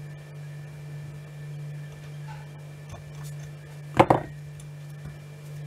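Metal tweezers set down on a workbench about four seconds in: a brief double clatter, the loudest thing here, over a steady low hum.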